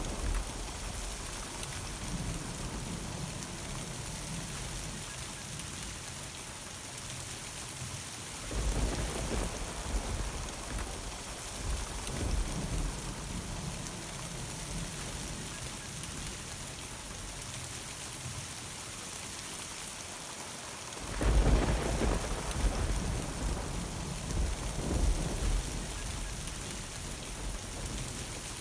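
Steady summer rain hissing, with rolling thunder: a rumble about a third of the way in and a louder, longer roll starting about three quarters of the way through that rumbles on to near the end.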